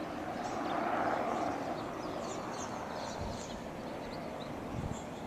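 Outdoor ambience: a broad rushing rumble, like distant traffic or a passing aircraft, swells about a second in and slowly fades, while small birds chirp faintly.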